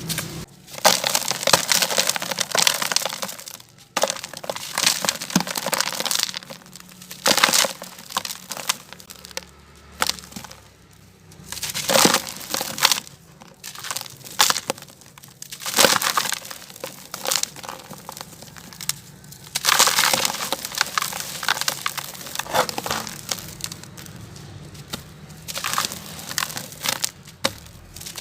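Gritty, brittle heart-shaped pieces being crushed and crumbled by hand. They give off dense crunching crackles in repeated handfuls of one to two seconds, with short pauses between.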